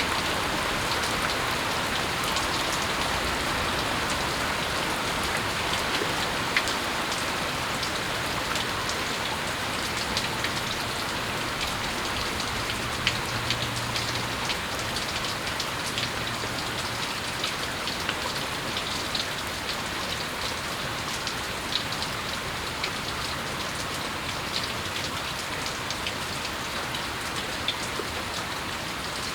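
Steady moderate rain falling on the surfaces around a house, an even hiss with scattered sharp drip ticks through it.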